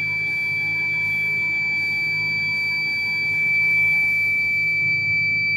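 Kent RO water purifier's electronic buzzer sounding one continuous, unbroken high-pitched beep: the faulty beeping that the purifier is being serviced for. Background music plays underneath it.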